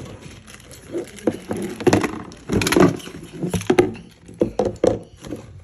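Hard plastic Hot Wheels track pieces knocking and clicking as they are handled and fitted together: a string of irregular knocks, loudest about halfway through.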